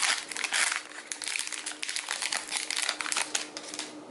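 Foil wrapper of a Pokémon TCG Evolutions booster pack crinkling and crackling as it is pulled open by hand, a dense run of sharp crackles.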